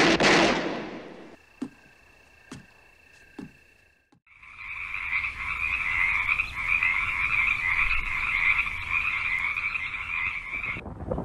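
A loud rushing noise fades out over the first second, followed by faint steady tones and three soft knocks. About four seconds in, a dense, continuous night chorus of calling animals starts up and cuts off suddenly near the end.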